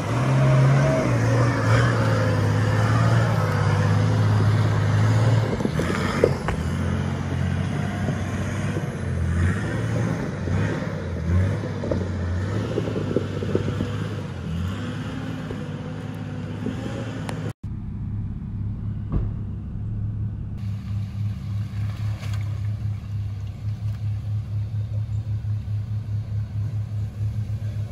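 A Nissan Patrol 4WD's engine revs up and down under load as it climbs a steep rutted track. After a sudden cut about two-thirds of the way through, another 4WD's engine runs with a steady, regular throb.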